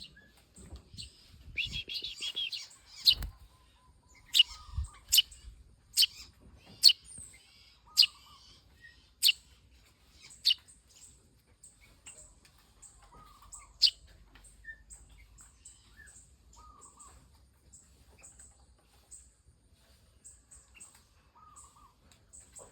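Eurasian tree sparrow chick chirping, the begging calls of a nestling being hand-fed. A quick burst of chirps comes about two seconds in, then single sharp chirps about once a second until about ten seconds, one more near fourteen seconds, then faint, rapid high chirps. Two low thumps sound near the start.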